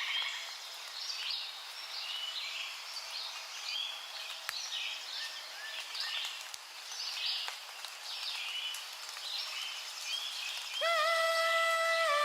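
Birdsong ambience: many short bird chirps over a soft background hiss. Near the end a woman's voice enters, humming a long held note that then steps down in pitch.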